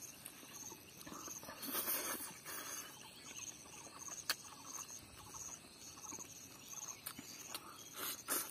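Close-up eating sounds of a man chewing rice and spicy crab curry eaten by hand: wet chewing and smacking, with a few sharp clicks.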